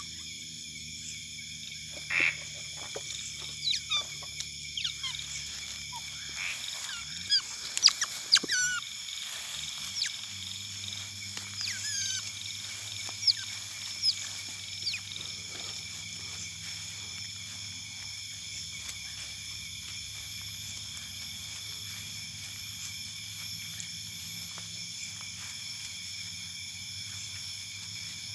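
Otters giving short high chirps and squeaks, mostly in the first half, loudest with a few sharp clicks about eight seconds in, then thinning out. Under them runs a steady high-pitched night chorus of insects and frogs.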